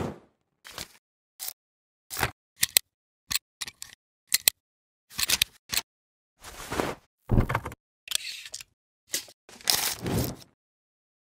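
Camera-style sound effects: an irregular string of sharp shutter-like clicks and short noisy bursts.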